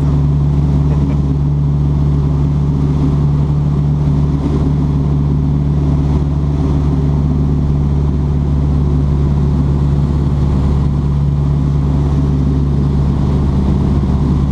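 Light aircraft's piston engine droning steadily in cruise, heard from inside the cockpit under the canopy, with a constant low hum and the rush of air.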